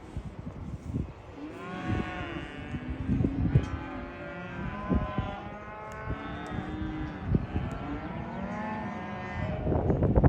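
Several cattle mooing and bawling, their calls overlapping one after another, with a few sharp knocks among them.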